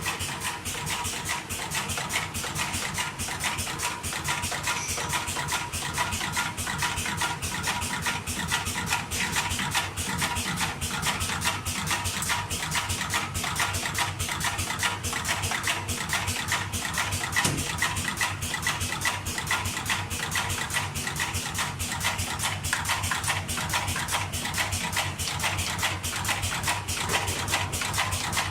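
Automatic pneumatic battery spot welding machine running, a rapid, steady series of clicks, several a second, as it welds cells, over a steady machine hum.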